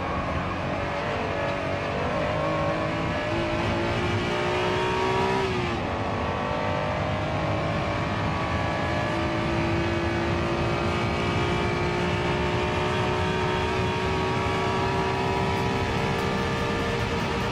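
Honda NSX-R's 3.0-litre V6, heard from inside the cabin, accelerating hard at high revs. The engine note climbs steadily, drops sharply with an upshift a little under six seconds in, then climbs slowly again through the next gear.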